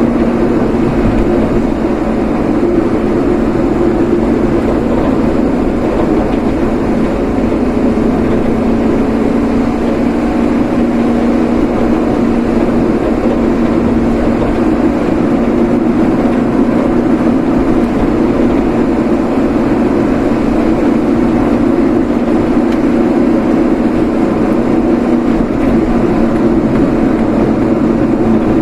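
Steady engine and road noise of a vehicle driving at an even pace, with a constant low hum and no changes in speed.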